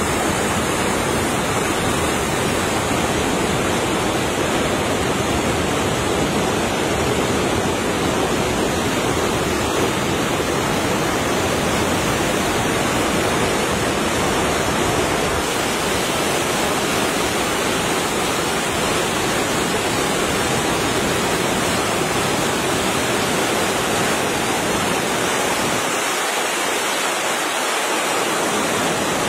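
Muddy monsoon floodwater rushing past in a fast, turbulent torrent: a steady rushing noise.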